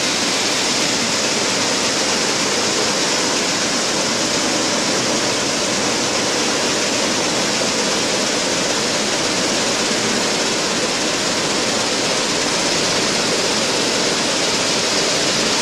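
Foxnut dehulling and separating machine running, its vibration motors shaking a mesh screen deck as the foxnut seeds rattle across it in a steady, dense hiss.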